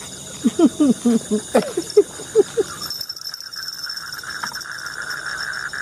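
A quick run of about ten short pitched vocal sounds in the first couple of seconds, then crickets and other night insects buzzing steadily from about halfway through.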